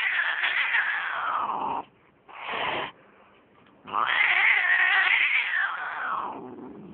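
Domestic cat yowling in two long, drawn-out wails that slide down in pitch as they end, with a short noisy burst in the pause between them.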